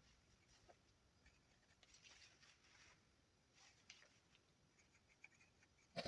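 Faint scraping strokes of a knife whittling juniper wood, the longest lasting about a second, with a sharp tap at the very end.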